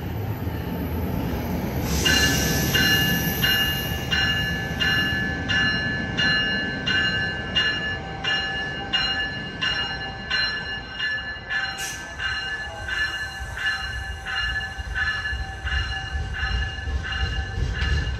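A train's warning bell ringing steadily, about two strokes a second, as an NJ Transit train comes into the station, with the rumble of the approaching train building near the end.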